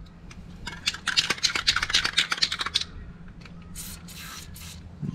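Aerosol can sprayed into a partly drilled-out head-bolt hole in an aluminium cylinder head: a run of scratchy, crackling sputters, then a short hiss about four seconds in.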